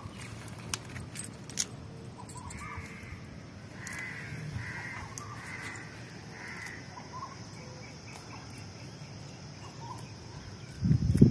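Palak (spinach) leaves being plucked by hand, faint snaps and rustles. In the middle a bird calls about five times in quick succession, and a louder bump of handling comes near the end.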